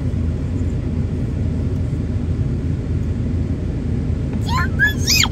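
Steady low rumble of car road and engine noise heard inside a moving car's cabin, with a high voice calling out briefly near the end.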